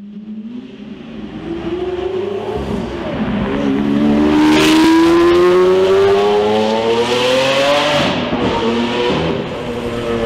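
Lamborghini Aventador's V12 accelerating hard, its note climbing steadily in pitch for several seconds with a short dip about three seconds in. About eight seconds in the pitch drops sharply and the engine runs on at lower revs.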